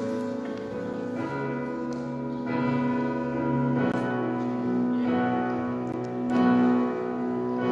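Digital keyboard playing slow, sustained chords with a bell-like tone, a new chord struck about every second and a bit, as the instrumental intro to a worship song.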